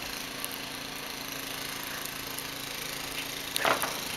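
Suzuki Samurai engine running at a steady, even note, with a brief higher sound about three and a half seconds in.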